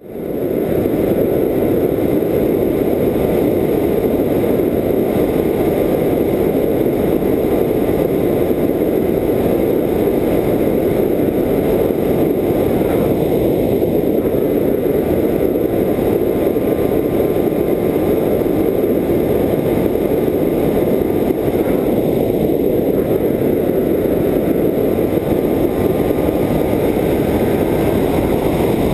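Air rushing over the onboard camera's microphone on an FPV Raptor foam RC plane in flight, with the faint steady whine of its electric motor and propeller underneath. The whine drops out briefly twice.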